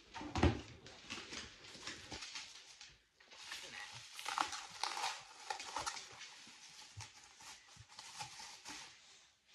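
Plastic bubble wrap rustling and crinkling as a hardback book is handled and unwrapped, with a low thump about half a second in.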